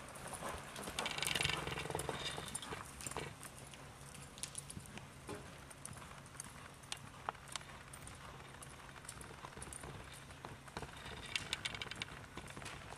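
Hoofbeats of a loping quarter horse/paint gelding on soft arena dirt: irregular thuds and sharp ticks, loudest in the first few seconds as the horse passes close, fainter as it moves off, and louder again near the end.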